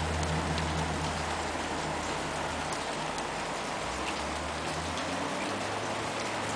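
Steady rain falling, an even hiss with scattered light drips and ticks through it.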